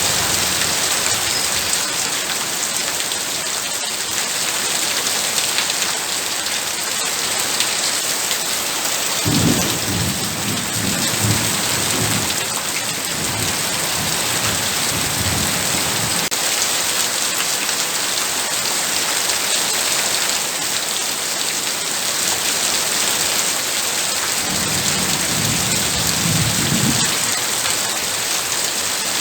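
Heavy rain pouring steadily, with two long low rolls of thunder: one about nine seconds in that lasts several seconds, and a shorter one near the end.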